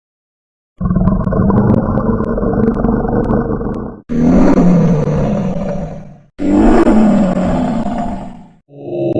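Lion roaring: three long, loud roars of two to three seconds each after a brief silence, the first cut off suddenly, with another starting near the end.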